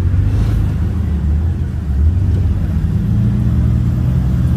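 Lifted Jeep Wrangler's engine running at low revs as it crawls over slickrock, with its note rising a little about three seconds in.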